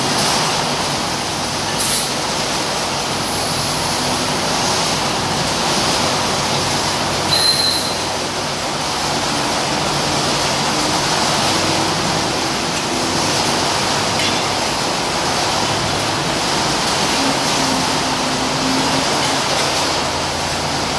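Changlin ZL30H wheel loader's diesel engine running steadily at idle, a dense mechanical rumble, with brief high hisses at about two and seven seconds in.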